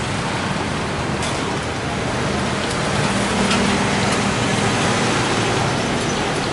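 Busy street ambience: a steady rushing hiss of traffic, with a low motor hum swelling in the middle.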